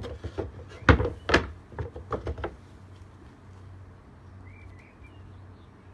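Metal-lidded scent canisters being handled and knocked against their wooden boards: a quick series of about seven sharp knocks and thuds over the first two and a half seconds, then quiet.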